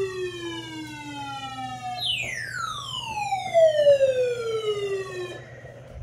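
Two long whistle-like tones, each sliding steadily down in pitch: the first fades out near the middle, and the second starts high about two seconds in and falls for about three seconds before stopping.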